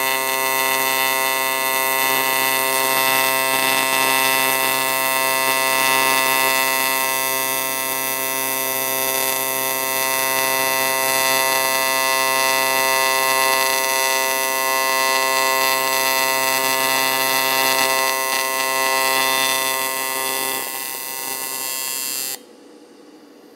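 AC TIG welding arc on cast aluminum, a steady harsh buzz while a crack in a cast aluminum cylinder head is welded. It weakens slightly near the end, then cuts off suddenly as the arc is broken, leaving a faint hiss.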